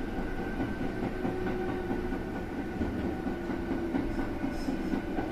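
Kintetsu 21000-series Urban Liner plus electric train running along the track, heard from inside the driver's cab: a steady rumble of wheels and running gear with a few steady humming tones over it.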